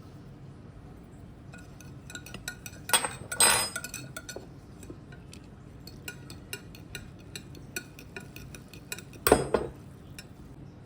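Dishes and kitchen utensils clinking and knocking: a run of light clicks, with a louder clatter about three seconds in and another near the end.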